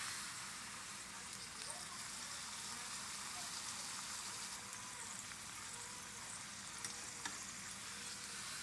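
Tortilla frying in hot oil in a pan with a steady sizzle, being folded into a taco shell. A few light clicks come from the metal fork against the pan, about a second in and again near the end.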